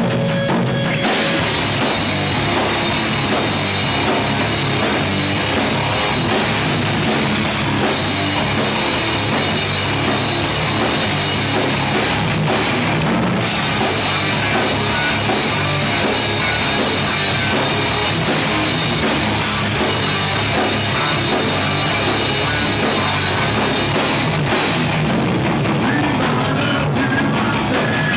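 Live heavy rock band playing loudly and steadily: electric guitars, bass guitar and a drum kit.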